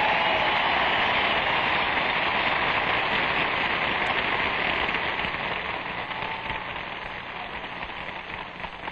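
Large convention crowd applauding, loud at first and slowly dying away, on an old band-limited recording with a steady low hum.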